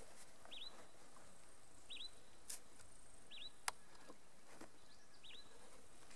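A bird repeating a short two-note call, each note sliding down in pitch, about every one and a half seconds over faint outdoor hiss. A single sharp click sounds about three and a half seconds in.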